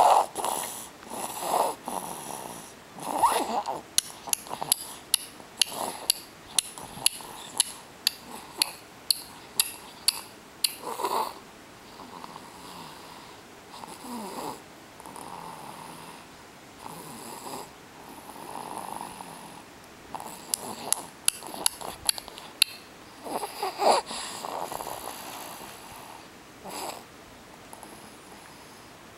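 Infant snoring in sleep, with noisy breaths every few seconds, and quick clicks of sucking on a pacifier, about two a second for stretches between them.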